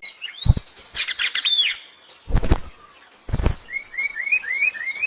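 Small birds chirping: quick sweeping chirps in the first second or so, then a run of five short rising chirps, about three a second, near the end. Three brief knocks fall between them.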